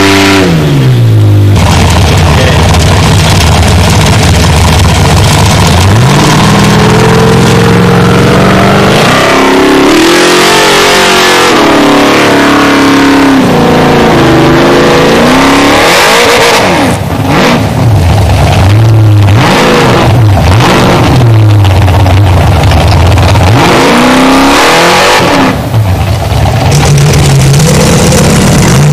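Formula Offroad buggy engine revving hard under full load as it climbs a steep sand slope with spinning tyres. The pitch drops at the start, climbs again, then rises and falls repeatedly as the driver works the throttle. Very loud.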